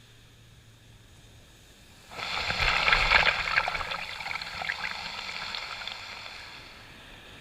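A wave washing up the beach: a sudden rush of fizzing water about two seconds in, then a slow fade as it runs back.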